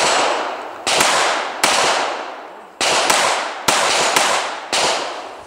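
Ruger .22 pistol firing seven shots in quick, uneven succession, each sharp crack followed by a long echo trailing off.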